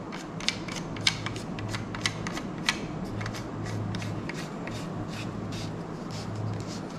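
Shimano Stradic SW4000HG spinning reel and rod being handled, giving a quick, irregular run of light clicks, about three to four a second.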